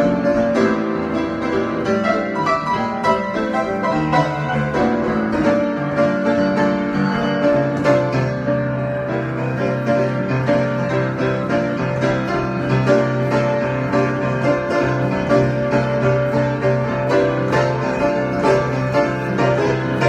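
Improvised keyboard music: piano-like notes and chords over sustained tones, with a low bass note that comes in partway through and holds.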